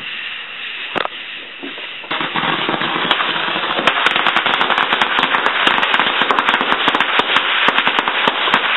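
Firecrackers going off: a single pop about a second in, then from about two seconds in a long, rapid, dense string of pops and cracks that keeps going.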